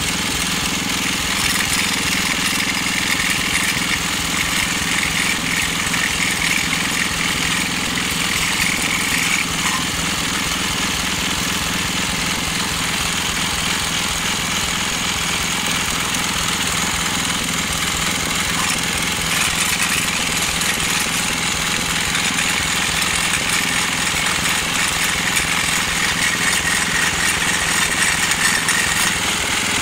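Briggs & Stratton 206 cc 5 HP single-cylinder four-stroke engine running steadily at an even speed, with its air filter removed.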